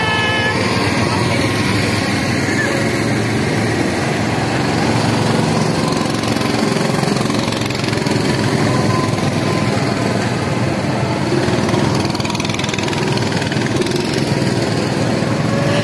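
Small petrol engines of rental go-karts running steadily as karts pull out of the pit lane and drive past.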